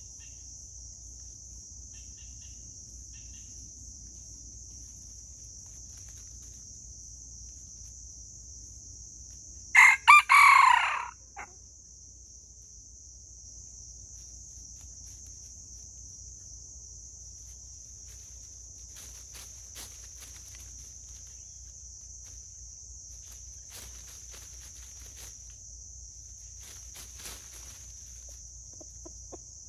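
A rooster crows once, a short crow of about a second and a half, about ten seconds in, over the steady high drone of crickets.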